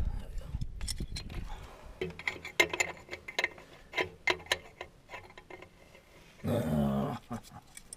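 Sharp metallic clicks and knocks of hand tools working on steel, scattered irregularly through the middle, then a brief low-pitched vocal sound near the end.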